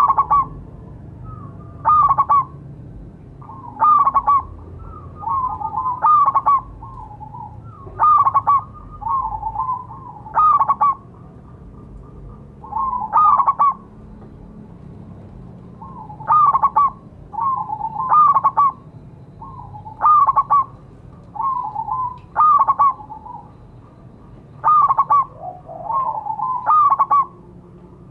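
Zebra dove (perkutut) cooing its calling song: short phrases of quick, rippling notes, repeated about every two seconds.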